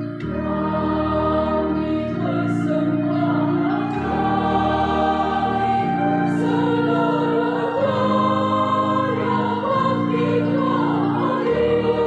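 Church choir, mostly women's voices, singing a hymn together over sustained keyboard chords that change about every two seconds.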